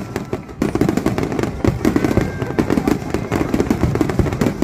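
Fireworks going off in rapid succession: a dense, continuous run of pops and crackles.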